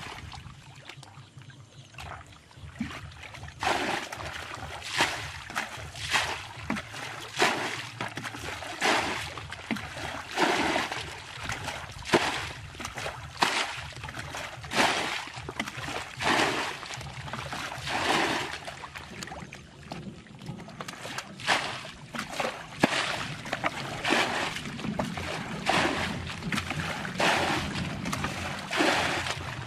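Water bailed with a plastic bucket from a shallow, muddy stream: the bucket is scooped in and the water flung out, a splash about once a second after quieter first few seconds.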